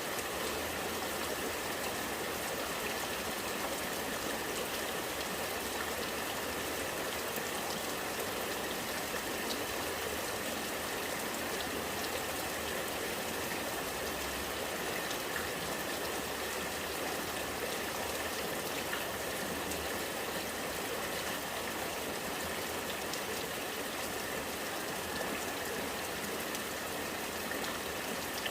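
Rainwater running and gurgling steadily, with scattered drops of rain falling.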